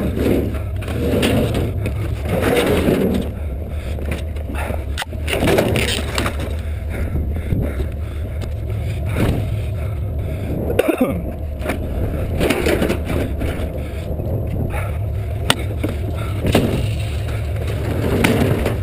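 Steady low rumble of a vehicle with rattles and clunks over it, and a sharp knock about eleven seconds in.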